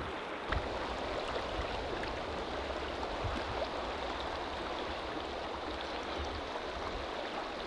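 Steady rush of a shallow, rocky river flowing, with a soft thump about half a second in.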